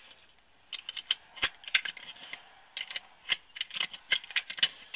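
UpLula magazine loader pressed down again and again as 9mm cartridges are fed into a Walther PPS pistol magazine: a quick, irregular run of sharp plastic and metal clicks, starting just under a second in.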